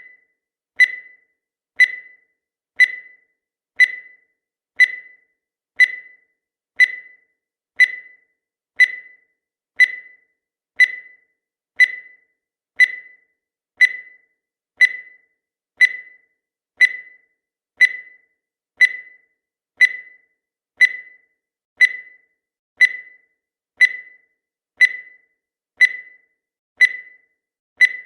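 Countdown timer sound effect: a short beep once every second, each starting sharply and dying away quickly.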